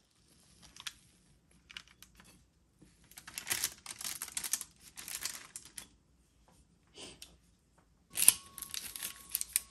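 Kitchen knife cutting through a pan of soft baked hermit bars on parchment paper: crinkling paper and scraping in irregular bursts, heaviest in the middle, with a sharp knock a little after 8 seconds in.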